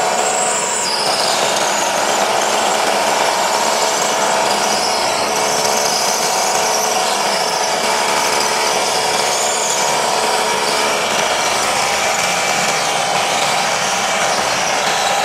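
Bosch GBH 187-LI cordless rotary hammer running steadily in hammer-drill mode, drilling into concrete with an ordinary non-SDS concrete bit.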